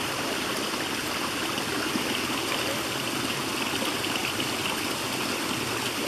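A small woodland creek cascading over rocks: steady running water.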